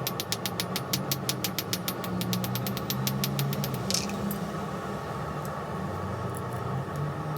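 Rapid, even hammer blows on hot steel rod being drawn out thinner, about seven a second, stopping about four seconds in, over a steady low hum.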